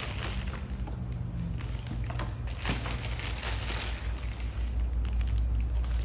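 Packaging being handled during unboxing: irregular crinkling, rustling and cracking. A steady low rumble runs underneath and gets louder near the end.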